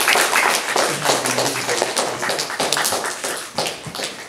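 Round of applause: a group of people clapping their hands, dense, quick claps that thin out and fade near the end.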